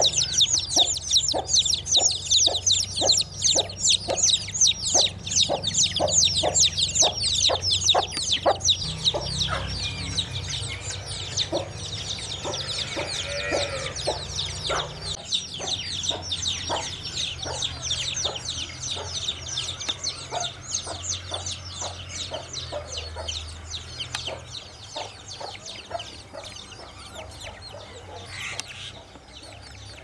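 Desi hen clucking steadily, a few clucks a second, over the continuous high peeping of a brood of chicks. Both slowly fade and thin out toward the end.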